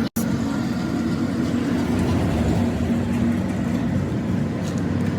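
An engine running steadily at a low, even hum, broken by a brief dropout just after the start.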